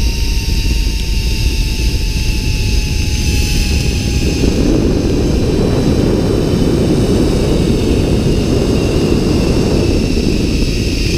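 Steady rush of wind buffeting an action camera's microphone during a fast prone zipline ride, heavier through the middle stretch. Over it, a thin steady high whine that fits the zipline trolley's pulleys running along the steel cable.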